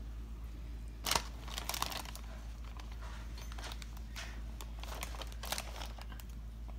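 Rustling, crinkling and soft clicks as hands peel apart slices of deli ham and lay them in a glass baking dish, in scattered bursts from about a second in, over a steady low hum.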